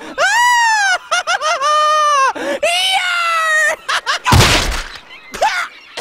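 Cartoon character's voice yelling in three long, drawn-out cries that swoop up and fall away. A loud crash follows about four seconds in as he slams into the mast, then a short yelp.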